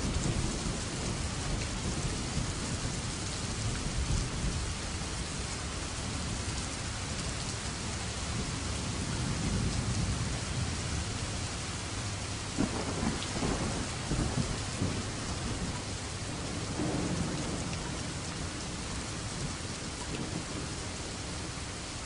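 Steady heavy rain falling, with low rolls of thunder that swell and fade several times, the sharpest about two-thirds of the way through.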